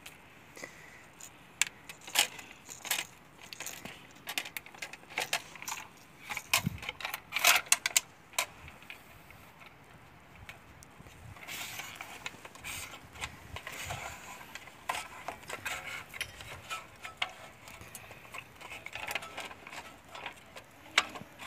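Scattered plastic clicks, snaps and light knocks from handling a plastic fiber optic terminal box and working its hinged covers, with a stretch of rustling about halfway through.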